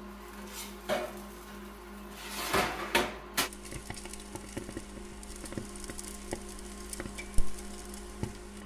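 Steak cooking under the glowing top element of a Gemelli infrared countertop grill: fat crackling and spitting in scattered sharp pops over a steady low hum. A few louder metal clatters and scrapes come in the first three and a half seconds, as the steak goes onto the rack.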